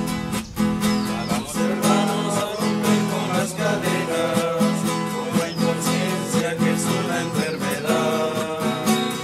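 Acoustic guitar strummed in a steady rhythm, accompanying a group of voices singing a song in Spanish.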